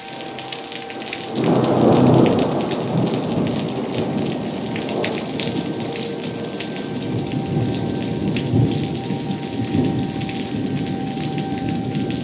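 Rain falling steadily, with a roll of thunder that breaks about a second and a half in and keeps rumbling.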